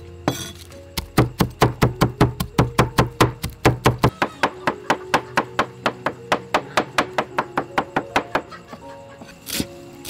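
A cleaver mincing garlic and then chopping herbs on a thick wooden chopping board: a fast, even run of sharp knocks, about four a second, that stops shortly before the end. Background music plays throughout.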